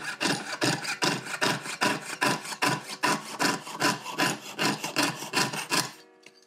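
Jeweller's piercing saw cutting through sheet silver in even rasping strokes, about three a second. The strokes stop about six seconds in as the cut goes through.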